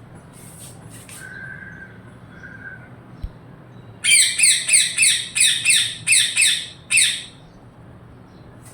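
Parrot giving a rapid series of about nine loud, harsh squawks over three seconds, starting about four seconds in, with a few faint chirps earlier.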